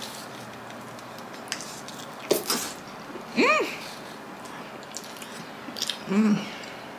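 Someone chewing a mouthful of fried dough, with crinkling of the plastic wrap around the food and scattered small rustles. Two short hummed "mm" sounds come through closed lips: one rises and falls about three and a half seconds in, and a lower one comes near the end.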